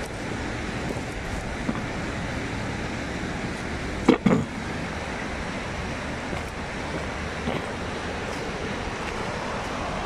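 Steady rush of the Swat River running over its stony bed. A brief loud sound cuts in about four seconds in.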